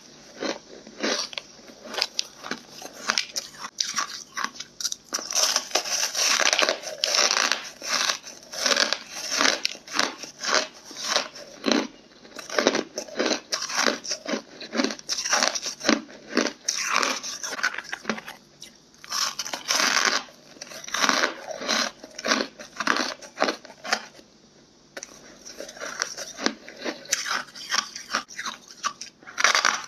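Hard, frost-coated ice being bitten and chewed up close: dense, rapid crunching and cracking, with brief lulls twice in the second half.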